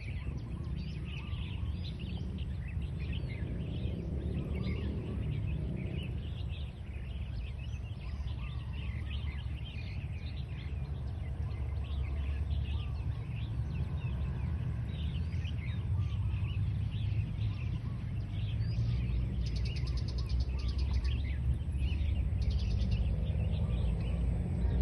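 Many small birds chirping repeatedly over a steady low rumble of outdoor background noise, with a brief fast, high ticking trill twice near the end.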